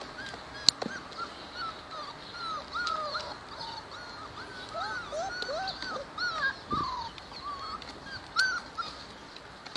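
A litter of young puppies whimpering and squeaking together, many short high-pitched cries overlapping without pause. A sharp click cuts in about a second in, and another near the end.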